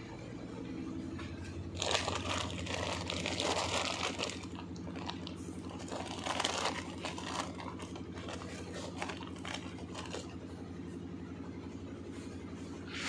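Plastic bale wrapping crinkling and rustling as the bales are handled, in several bursts, the longest lasting about two seconds near the start, over a steady low machine hum.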